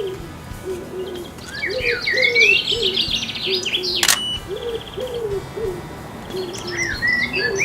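A pigeon cooing in repeated low phrases, with small songbirds chirping and twittering over it, busiest in the middle. A single sharp click about four seconds in, a camera shutter firing.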